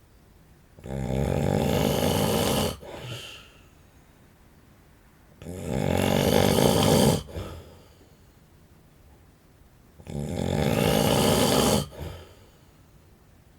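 A man snoring in his sleep: three loud snores, each about two seconds long and coming roughly every four and a half seconds. Each snore cuts off abruptly and is followed by a brief, softer breath.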